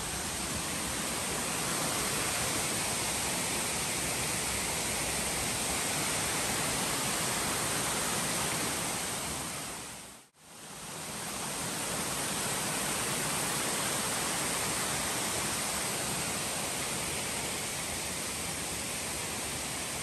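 Steady rush of a mountain creek falling over rock ledges and cascades. It fades out briefly about halfway through and comes back.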